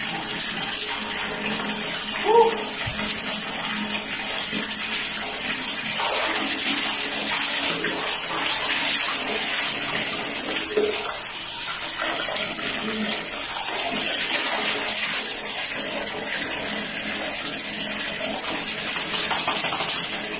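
Water running and splashing on a tiled floor: water poured from a dipper over a wet dog and running into a bucket, steady throughout and heavier in the middle. A short high-pitched sound comes about two seconds in.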